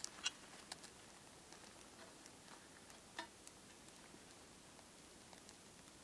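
Small wood fire in a metal box stove crackling faintly, a few sharp pops and clicks, the loudest just after the start and about three seconds in, over a low hiss.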